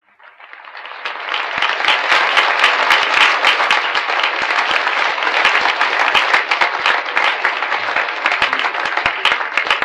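Audience applause: many hands clapping in a dense, irregular patter. It fades in over about the first second, then holds steady.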